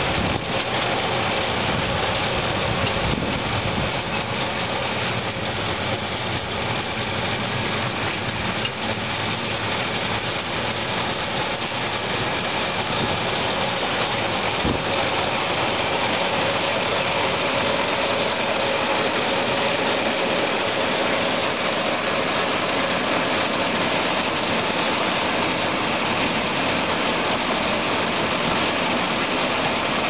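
A tractor engine running steadily under load, pulling a New Holland 658 round baler whose pickup and rollers are taking in hay, heard as a dense, unbroken rush of mechanical noise.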